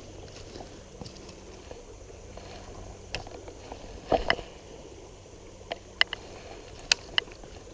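Shallow river water moving around a wading angler, with a handful of separate sharp clicks and knocks. The loudest is a cluster about four seconds in, and a few short, high clicks come near the end.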